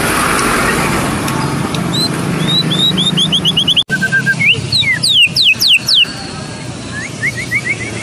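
White-rumped shama (murai batu Medan) singing a fast, varied run of whistles: quick downward-sweeping notes and strings of short rising notes. The song breaks off for an instant just before the middle. A steady low rumble of street traffic lies underneath.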